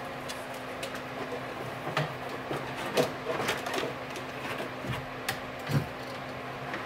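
Irregular clicks, knocks and rustles of wiring being handled and pulled through a car's trunk, the sharpest knock about three seconds in, over a steady low hum.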